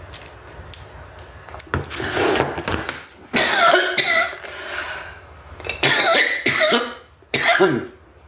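A woman coughing in four short bouts, typical of a cold.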